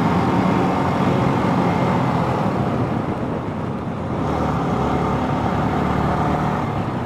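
Sport motorcycle's engine running at cruising speed, heard from the rider's position with a steady rush of wind and tyre noise. The engine eases off slightly about halfway through as the bike slows.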